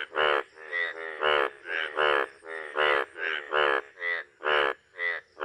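Male Indian bullfrog calling, its paired blue vocal sacs puffing out with each call. It gives a string of short, loud croaks, about two a second.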